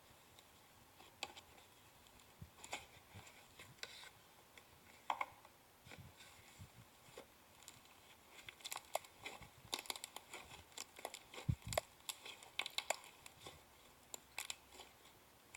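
Slime being squished and stretched by hand: scattered small crackles, clicks and pops, coming thickest in the middle.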